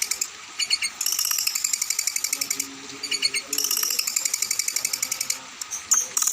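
A songbird's rapid, rattling chatter, in phrases of about one and a half to two seconds. Each phrase is separated by a few short, sharp notes.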